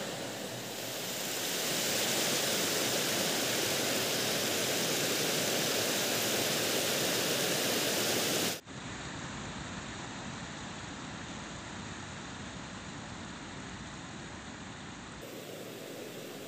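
Steady rush of fast-flowing river water over rocks. It is loud and bright for the first half, then drops abruptly to a softer, duller rush about eight and a half seconds in.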